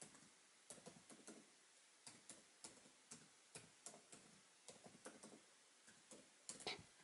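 Faint keyboard keystrokes: single key clicks at an uneven pace, about one or two a second, with a quick little run of keys near the end, as a password is typed.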